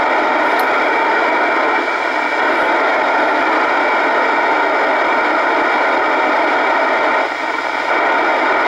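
Steady FM static hiss from an Icom communications receiver's speaker, tuned to the 70 cm satellite downlink with no signal coming through. The hiss dips briefly twice, about two seconds in and near the end.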